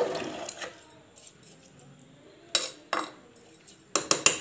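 Metal spoon stirring rice and vegetables in water inside an aluminium pressure cooker, scraping and knocking against the pot: a couple of clinks in the middle and a quick run of sharp clinks near the end.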